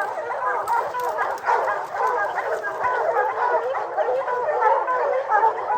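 A pack of hunting hounds barking and bawling without a break, many voices overlapping, as they run a bear.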